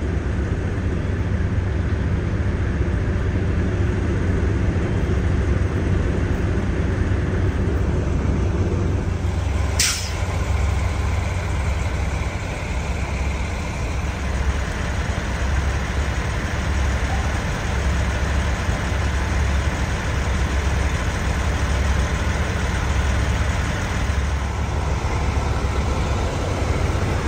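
Diesel engines of idling fire trucks running steadily with a deep rumble, and a brief sharp air-brake hiss about ten seconds in.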